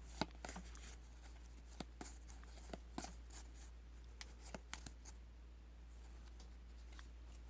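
Faint, irregular clicks and flicks of trading cards being handled and flipped through by hand, busier in the first few seconds and sparser later, over a steady low hum.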